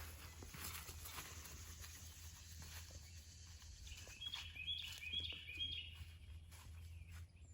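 A songbird singing a quick run of short repeated chirping notes, about four a second, starting about four seconds in, over a faint steady low outdoor rumble.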